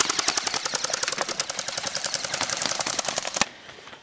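Airsoft gun firing on full auto: a rapid, even stream of shots, about a dozen a second, that cuts off suddenly about three and a half seconds in.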